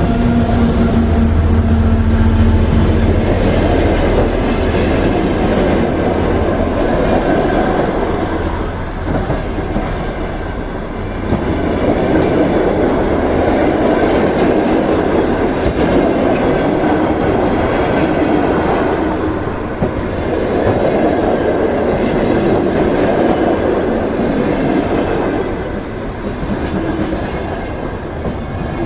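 Passenger train behind a TEP70 diesel locomotive rolling past close by: a steady low hum for the first few seconds, then the carriages' wheels clattering over the rail joints in a loud rumble that swells and fades several times. Wind buffets the microphone.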